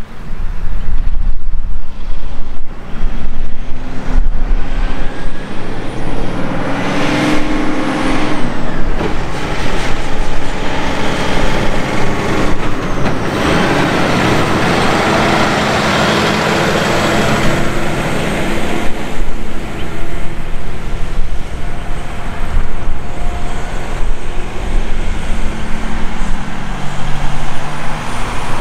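Diesel-electric freight locomotives running under load, their engines humming low and steady over the rumble of a long freight train on the track, with wind buffeting the microphone.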